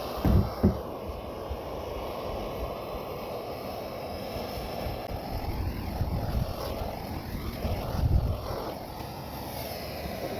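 Off-road vehicles running and driving past as a steady engine rumble, with a few short low thumps.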